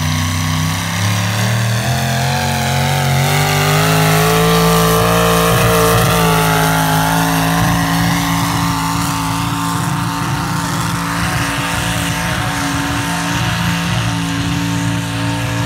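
Chevy-powered competition vehicle's engine running hard, its pitch climbing over the first five seconds as it revs up, then holding steady at high revs.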